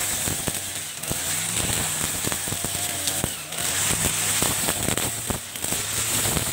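40cc-class two-stroke backpack brush cutter running at cutting speed, its cutting head slashing through thick grass and weeds with a rapid, irregular crackle of sharp ticks over the engine's drone.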